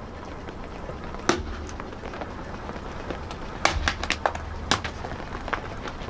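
Sharp cracks and crunches as a car tyre rolls over and crushes brittle objects, over a steady low rumble. One snap comes about a second in, then a quick run of cracks a little past the middle.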